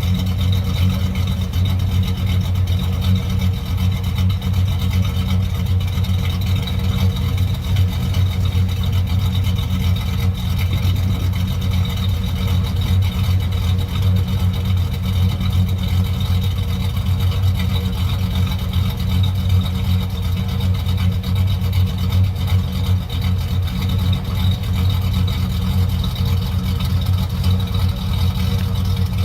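GMC Sierra's 5.3L Vortec V8, fitted with a Texas Speed Stage 2 camshaft (212/218 duration, 112 LSA), idling steadily through the stock muffler.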